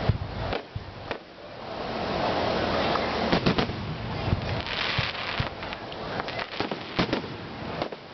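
Aerial fireworks going off: a string of sharp bangs and pops, with a stretch of dense crackling in the middle.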